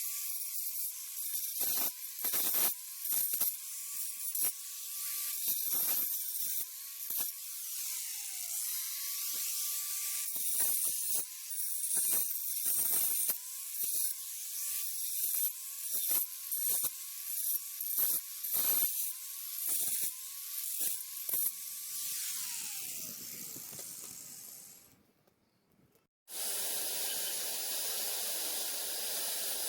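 Hitachi angle grinder widening a crack in a concrete slab, its whine dipping again and again as the disc bites and recovering, with gritty clicks and hiss from the cut. Near the end it is switched off and winds down with a falling whine, then after a cut a vacuum cleaner runs with a steady rushing noise.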